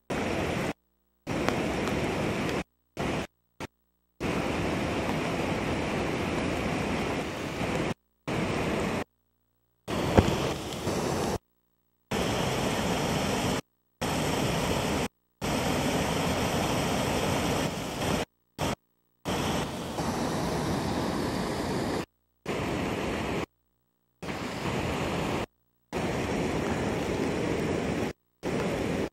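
Muddy floodwater rushing and churning as a steady, even roar, heard as water pouring over a spillway and a fast swollen flood stream. The sound cuts abruptly to silence again and again, and there is one sharp click about ten seconds in.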